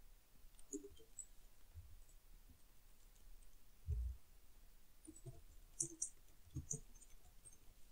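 Faint, scattered computer mouse clicks and keyboard key taps, with short runs of key taps between about five and seven seconds in. A dull thump about four seconds in is the loudest sound.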